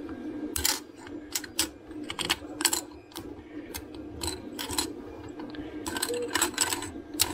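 3D-printed plastic parts popping off a printer's glass bed and clacking against each other as they are gathered by hand: a run of sharp, irregular clicks and clatters, over a steady low hum of running printers.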